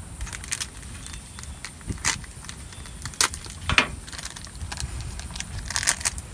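Crinkling and crackling of a thin clear plastic wrapper being handled and torn open by hand, in irregular sharp crackles with a few louder ones.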